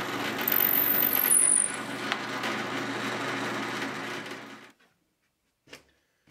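A woodworking power tool running steadily with a motor hum, stopping about four and a half seconds in; a couple of faint light knocks follow.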